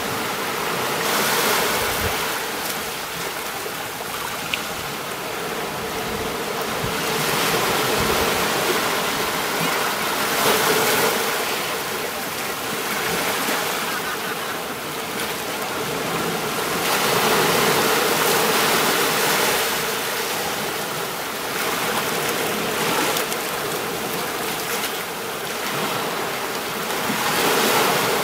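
Surf washing onto a beach: a continuous rush of water that swells and eases every several seconds as each wave comes in.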